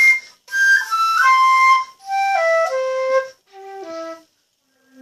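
Flute played by a learner in three short phrases of stepwise falling notes, with a breathy tone; the last phrase is quieter and lower.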